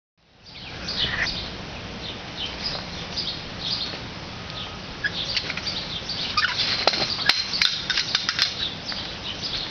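Small birds chirping over and over in short, high, falling notes, over a steady low hum. Near the end come a few sharp metallic clicks as the chain-link fence gate is handled.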